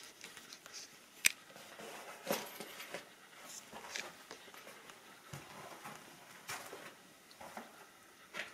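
Footsteps moving slowly through a small, empty room, with scattered light clicks and knocks from debris underfoot; one sharp click about a second in is the loudest sound.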